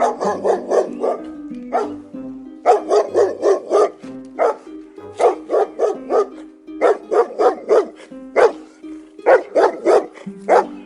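A dog barking in quick runs of several barks at a time, with short pauses between the runs.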